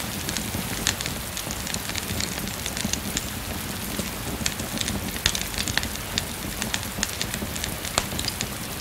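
Wood fire crackling with many irregular sharp pops, over the steady patter of rain.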